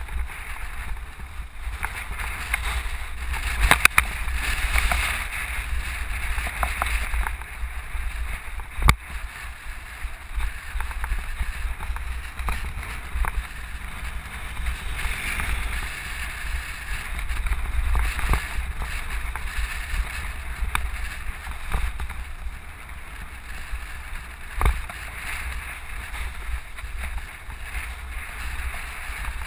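Wind noise on the microphone over the low rumble of a vehicle rolling along a rough dirt road, with a few sharp knocks from bumps, the loudest about nine seconds in.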